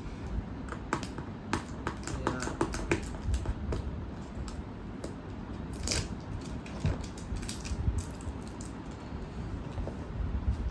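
Irregular rustling, crinkling and clicking of cardboard and plastic packaging being handled while a keyboard box is opened, with one louder crackle about six seconds in.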